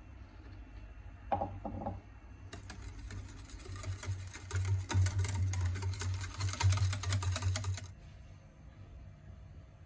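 Pancake batter being mixed in a bowl: rapid, continuous clattering of the mixing tool against the bowl for about five seconds, stopping abruptly. It is preceded by a brief clink about a second in.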